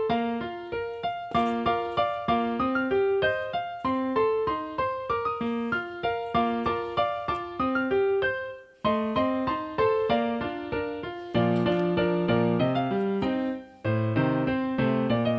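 Background music: a quick run of short, separate notes, each fading away, with lower bass notes joining about eleven seconds in and two brief breaks in the flow.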